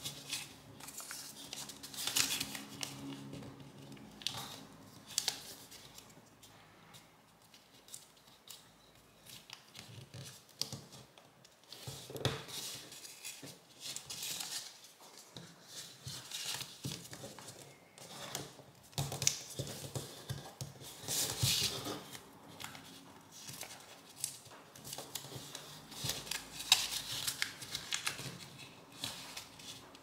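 A sheet of origami paper being folded and pressed into creases by hand: irregular rustles and crinkles of the paper with fingers sliding along the folds.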